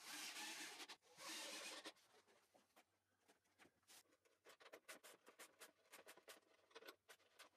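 Faint: two short bursts of a cordless drill-driver driving screws into a plywood support bracket, then light scratching and ticking of wood being handled against the bracket.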